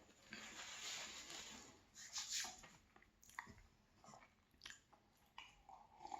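Faint mouth sounds of a person eating a cupcake: soft chewing, then a few short wet smacks spaced about a second apart.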